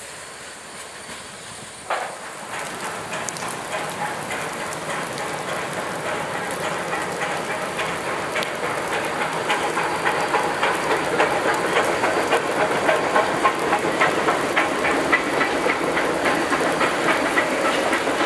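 Passenger cars of a steam-hauled train rolling past, their wheels clicking rhythmically over rail joints. The sound steps up about two seconds in and then grows steadily louder.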